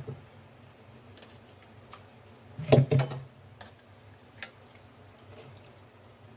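Chopped banana flower being scooped by hand from a steel bowl of water into an aluminium pressure cooker: scattered small clicks and soft wet knocks, with a louder cluster of knocks a little under three seconds in.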